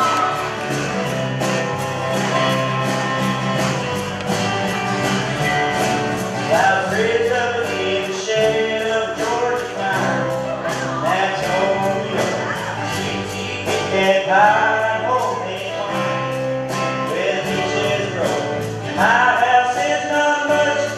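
Live country song: a young male singer with strummed acoustic guitar and a backing band playing a steady beat.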